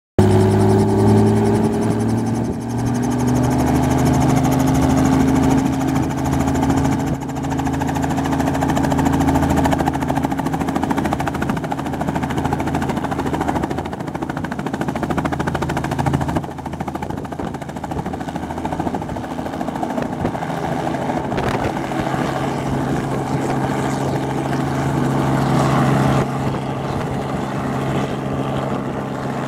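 Light two-bladed helicopter running on the ground, its engine and rotor pitch rising over the first few seconds as it spins up, then holding a steady run. Near the end the sound shifts as it lifts off into a low hover.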